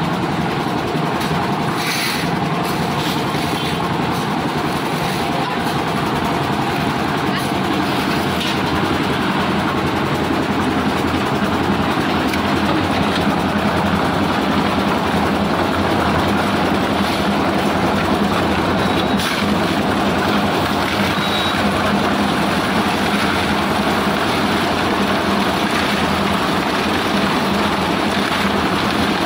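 Concrete mixer running, its rotating drum tumbling a load of stone chips. The noise is loud and steady throughout.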